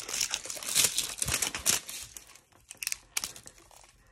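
Packaging crinkling and rustling in irregular bursts, busiest in the first two seconds, then thinning to a few scattered rustles and light clicks.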